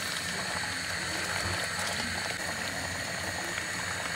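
Thick strawberry conserve boiling in a steel saucepan, bubbling and popping steadily over a constant hiss. It has cooked down thick enough to be ready.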